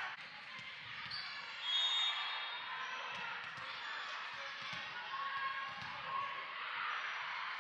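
Volleyballs bouncing and being hit in a large, echoing gymnasium, over a steady din of crowd chatter.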